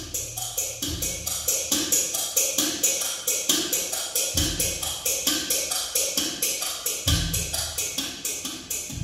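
Music with a steady percussive beat: sharp high ticks about four a second, with deep bass notes coming in a few times.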